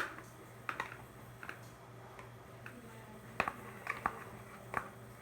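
Soap slime being handled and pressed into a bowl: scattered soft clicks and light squishes, about eight spread over several seconds, over a faint steady hum.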